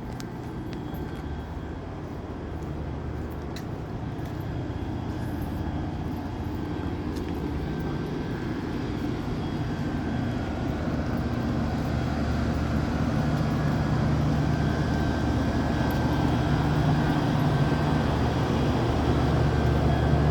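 Diesel locomotive engine running with a steady low drone, growing steadily louder through the whole stretch.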